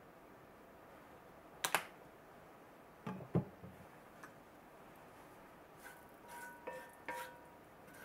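Kitchen handling noises: a sharp double click about two seconds in and two knocks a second later as the oil bottle is put away, then from about six seconds light taps with short ringing tones. No sizzling: the oil goes into the cast iron skillet quietly.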